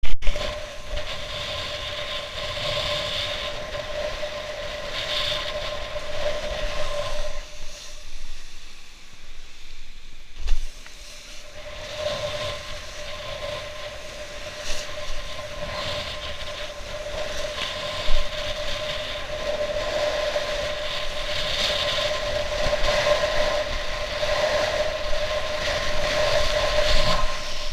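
Wind rushing over an action camera while kitesurfing through surf, with water splashing and a steady whistling tone that drops out about eight seconds in and returns around twelve seconds. A sharp knock at the very start and a few thumps later on.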